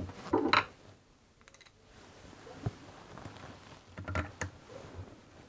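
Handling clicks and knocks of a screwdriver working a screw on a plastic cordless impact driver. There are a couple of sharp clicks at the start and half a second in, and another cluster about four seconds in.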